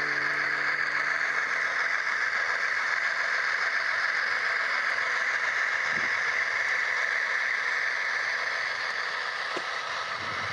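Model train running past on layout track: a steady, hissy rolling and motor noise of the model diesel locomotives and their wheels on the rails, easing off a little near the end as the locomotives go by and the hopper cars follow.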